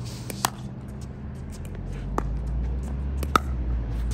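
Pickleball rally: paddles striking the plastic ball with sharp pops, the loudest about half a second in, at two seconds and near three and a half seconds, with fainter pops in between, over a steady low rumble.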